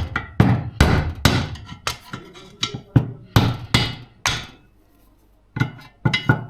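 Hammer blows driving a stuck bushing out of a Yamaha DT 125 swing arm pivot: a run of sharp strikes about two a second, a pause of about a second, then the strikes resume near the end.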